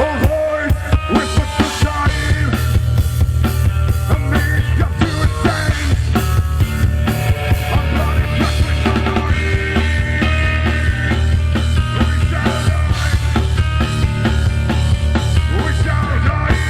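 Live rock band playing loud punk-style rock: sharp drum-kit hits at first, then a heavy, sustained low end joins about two seconds in and the full band plays on.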